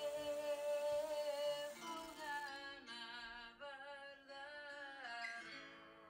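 Background music: a slow melody with wavering, vibrato-like pitch over plucked guitar, fading out over the second half.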